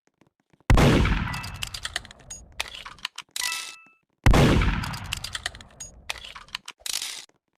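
A sound effect of two heavy blasts, about three and a half seconds apart. Each one dies away slowly under a scatter of small metallic clinks and brief ringing dings.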